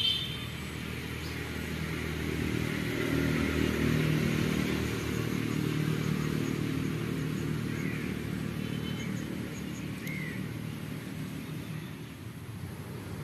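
Motor vehicle engine running at a distance, a steady low rumble that swells a few seconds in and then slowly fades, with two brief bird chirps near the end.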